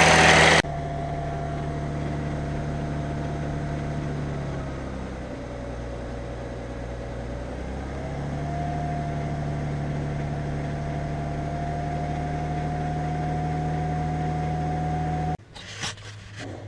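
Audi 3.0 TDI V6 diesel engine running steadily. Its speed sags a little from about a quarter of the way in and comes back up about halfway, and the sound cuts off suddenly near the end. The engine has a rattle around 1500 rpm that the owner suspects comes from a clogged or restricted timing-chain tensioner.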